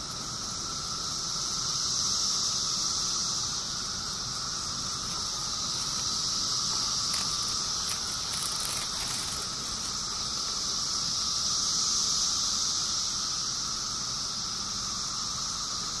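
Steady chorus of periodical cicadas: a continuous droning buzz that swells and eases slightly but never breaks.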